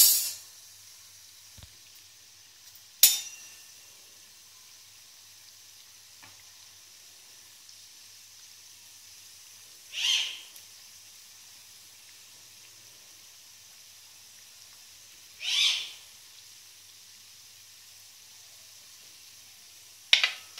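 Yeast-dough donuts deep-frying in hot oil in a wok, with a faint steady sizzle. A couple of sharp metallic taps come early, and two louder brief swishes of sizzling come about ten and fifteen seconds in, as a slotted spatula works in the pan.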